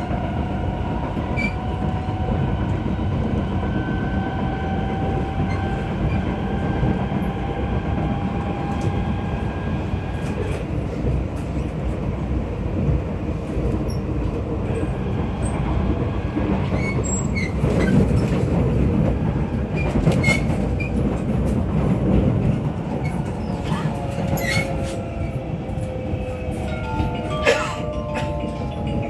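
Kawasaki Nippon Sharyo C751B metro train heard from inside a moving carriage: a steady rumble of wheels on rail under a faint motor whine, with occasional sharp knocks from the wheels, which the uploader says have flat spots. Near the end the motor whine steps down in pitch as the train slows.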